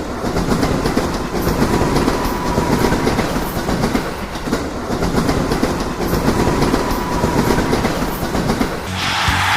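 A train running on the rails, its wheels clicking rhythmically over the track under a steady rumble, with a faint whine. About nine seconds in, it changes to a brighter, steadier hiss.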